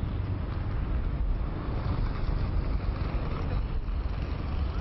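City street traffic: motor vehicles running past with a steady low rumble.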